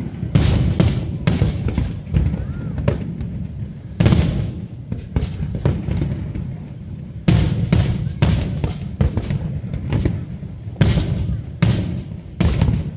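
Aerial fireworks shells bursting: a rapid, irregular series of loud bangs in clusters, over a steady low rumble.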